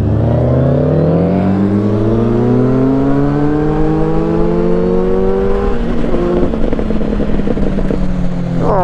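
Motorcycle engine accelerating, its note climbing steadily for about six seconds; then the note drops and levels out, running steadily at road speed.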